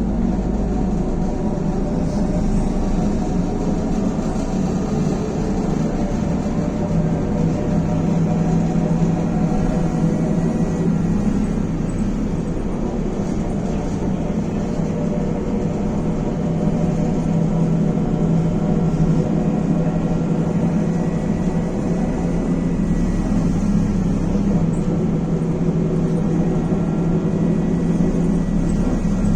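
Inside a Belkommunmash BKM-321 trolleybus under way: a steady hum from the running gear with several faint tones over it, and tyre and road noise.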